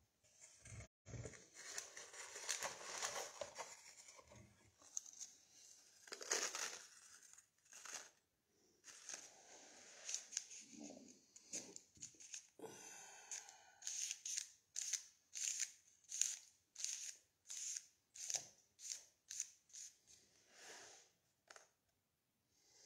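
Close hands handling paper or a small white object: rustling, crinkling and scraping. In the second half the sound turns to a run of short, even strokes about two a second.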